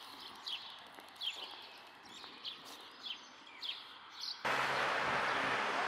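A bird calling in repeated short, high, downward-sweeping chirps, about one every second, over faint early-morning background. About four and a half seconds in, a loud steady rushing noise cuts in abruptly and covers the calls.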